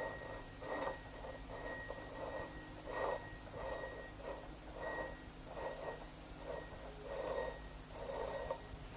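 Train passing, its wheels clattering over the rail joints in a muffled, even rhythm of about three beats every two seconds.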